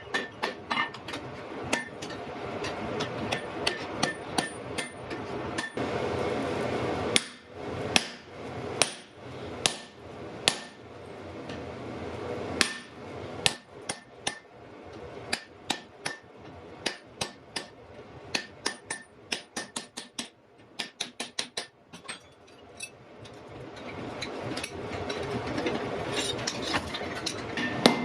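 Blacksmith's hammer striking iron on an anvil in irregular blows, each with a short metallic ring, and a quick flurry of lighter taps around twenty seconds in. A steady rushing noise lies under the blows at the start and near the end.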